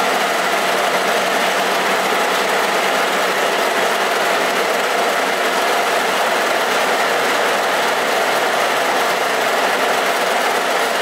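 Metal lathe running steadily, its chuck spinning while the cutter turns a cone on a lathe centre clamped in the jaws.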